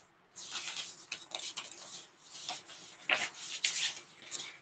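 Irregular rubbing and scratching sounds close to a microphone, with a few louder scrapes about three seconds in.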